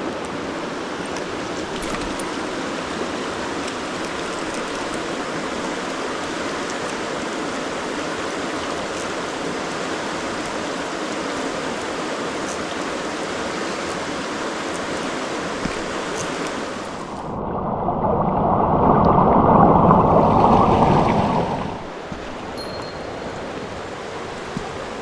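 Mountain stream water rushing steadily. About 17 seconds in the sound swells louder and turns muffled, with the high end suddenly gone, for about five seconds, then drops back to a quieter rush.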